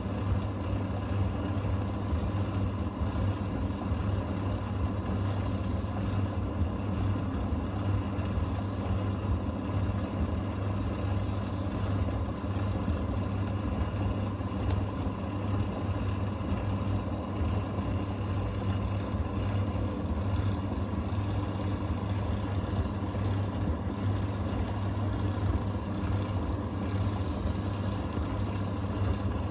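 Thompson TD120 compact vented tumble dryer running: a steady low motor hum with an even whoosh of air and a faint steady whine, unchanging throughout.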